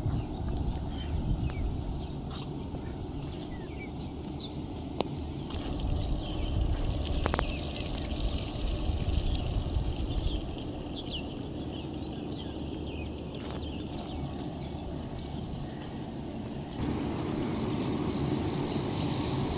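Open-air countryside ambience: a low rumbling noise with a steady high insect drone and scattered short bird chirps over it. The rumble shifts and gets fuller about seventeen seconds in.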